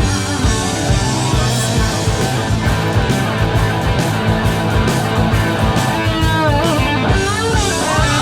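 Rock music with electric guitar and a steady beat, with wavering lead lines near the end.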